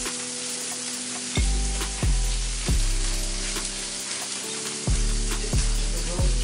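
Food sizzling and crackling steadily in a hot pan, under background music with deep notes struck every half second or so that ring and fade.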